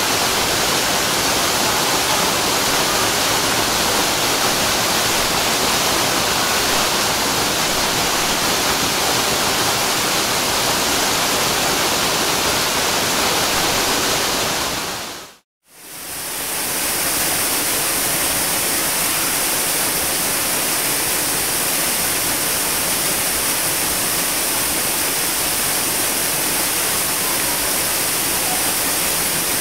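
Waterfall rushing in a steady, full roar of falling water. About halfway through it fades briefly to silence and comes back, brighter and hissier in the top end.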